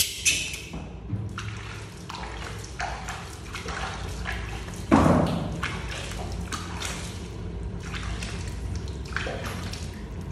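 Water splashing and dripping as a baby monkey is rubbed down with wet hands, a run of small irregular splashes, with one louder thump or splash about five seconds in.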